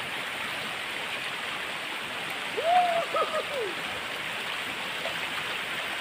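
Forest stream water rushing with a steady hiss; about halfway a brief high call of a few quick rising and falling notes sounds over it.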